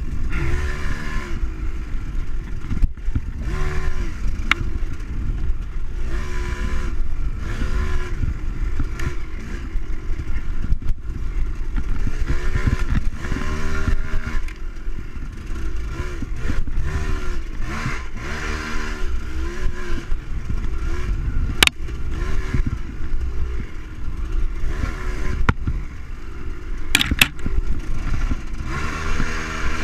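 KTM enduro dirt bike engine, revving up and falling back again and again as the rider works the throttle and gears along the trail. It comes with rattling and clatter from the bike, and a few sharp knocks, about three of them.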